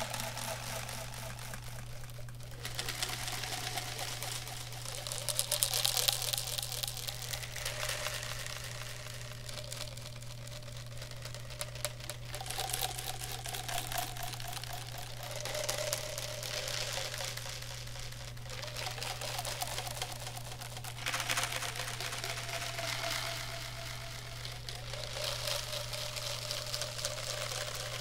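Clear plastic drink bottle handled close to a microphone: rapid crackling and scratching of the plastic, swelling and fading in waves every few seconds.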